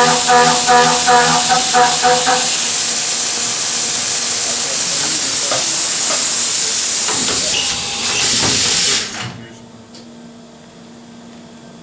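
Milling machine running with a loud, steady hiss that cuts off about nine seconds in, leaving a low steady hum. A repeating pulsed musical tone fades out about two seconds in.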